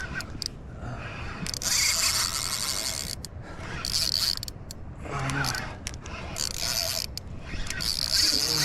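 Fishing reel being cranked in several short spells, its gears whirring as the topwater popper is retrieved.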